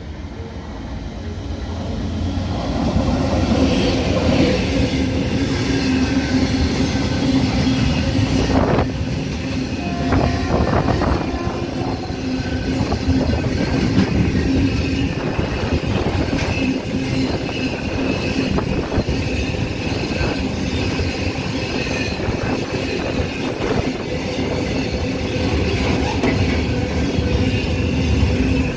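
Freight train wagons rolling past at speed, wheels clattering over the rail joints. It grows louder over the first few seconds, then holds steady.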